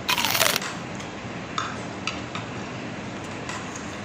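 Eating utensils on a plate: a loud half-second scrape or crunch at the start, then a few light clinks of cutlery against the plate.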